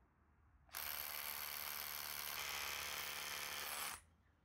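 Milwaukee compact cordless SDS-plus rotary hammer drilling a 6 mm hole into concrete, a steady motor-and-hammering run under load. It starts a little under a second in and cuts off near the end. The small bit is bogging down as it clogs with dust.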